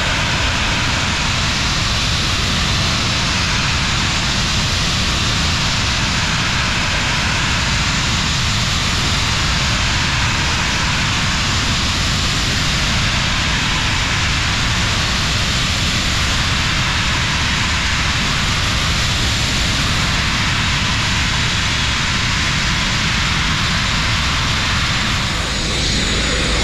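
Sandblasting nozzle running continuously: a loud, steady hiss of compressed air and grit stripping paint and filler from a narrowboat's hull, dipping briefly near the end.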